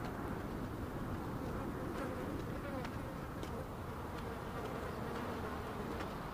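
A steady, faintly wavering buzz over a low rumbling ambience, with a few faint ticks.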